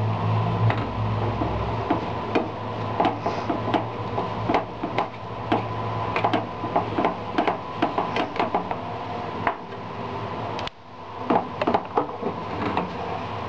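Wooden spatula knocking and scraping against a non-stick frying pan as mashed potatoes are stirred and mixed, in irregular taps over a steady low hum.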